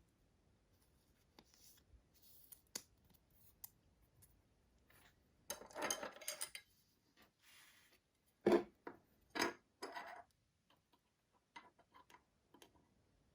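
Clear acetate trading cards being handled and slid against each other: light rubbing and scraping with scattered clicks, and a few sharper taps about eight and a half and nine and a half seconds in.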